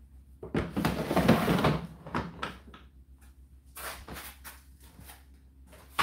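Plastic water-container drawer of an Indesit IDC8T3 condenser tumble dryer being handled and pushed back in: a scraping rattle from about half a second in, lasting over a second, a few lighter clicks, then a sharp click at the end as the drawer shuts.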